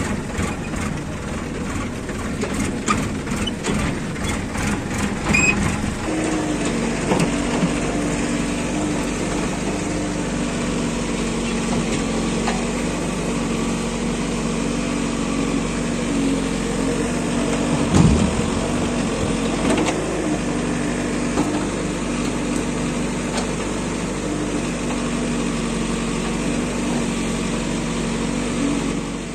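Diesel engine of a CASE 851EX backhoe loader running as it digs soil and loads it into a tractor trolley. There is a fast rattling clatter for the first few seconds, then a steady engine note that rises and dips a little under the digging, with a single thump about two-thirds of the way through.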